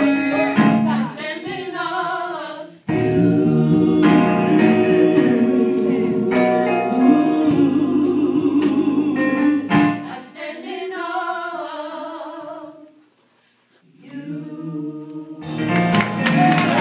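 Gospel song with singing over instruments. The music cuts off sharply about 3 seconds in and comes straight back, then fades almost to silence for about a second near the end before starting again.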